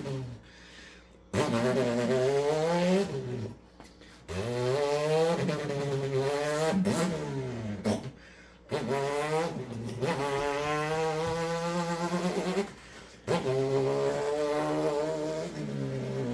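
A man imitating a dirt bike with his voice: a buzzing engine note that rises in pitch through each gear. The sound comes in four runs, each cut briefly as if for a gear shift.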